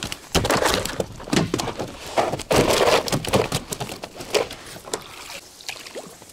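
Repeated heavy thuds and scraping on the floor of an inflatable boat as a large freshly caught fish, a catfish of about 6–7 kg, is handled and moves about, dying down to a few light knocks after about four and a half seconds.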